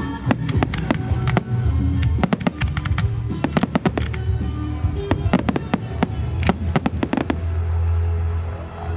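Fireworks going off in rapid volleys of sharp bangs and crackles over background music; the bangs stop a little before the end, leaving only the music.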